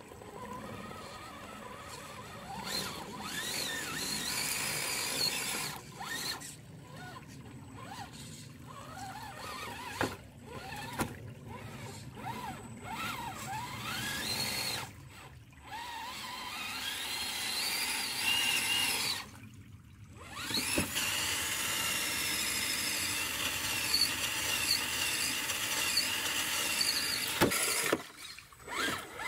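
Redcat Gen8 Scout II RC crawler's electric motor and gears whining, the pitch rising and falling as the throttle comes on and off, over the hiss of running creek water. The sound drops out briefly several times.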